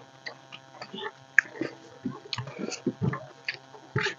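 Two people eating rice and fish curry by hand from steel plates: fingers squelching and mixing the rice, with irregular light clicks and scrapes against the metal plates, and chewing.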